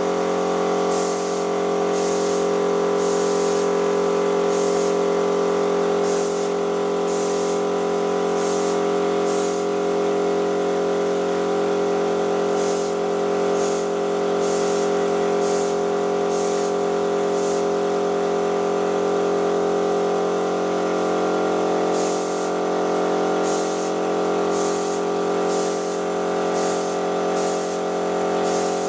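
A motor hums steadily while short hissing bursts of spray come about once a second, in three runs with pauses between them.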